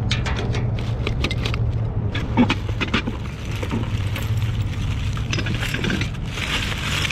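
Items being handled and set down among dumpster debris: a string of clicks, knocks and scrapes, the sharpest a little over two seconds in, over a steady low engine hum.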